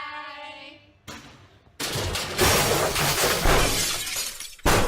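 A loud crash of shattering glass lasting almost three seconds, then a second short crash just before the end. It follows a held note that fades out in the first second.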